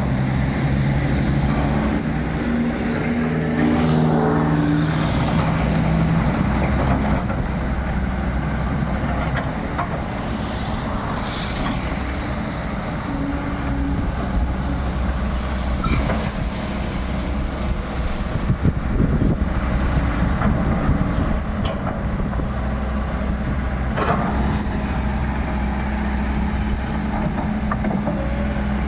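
Excavator's diesel engine running steadily, its pitch shifting up and down in the first few seconds as it works. A few sharp knocks come later in the stretch.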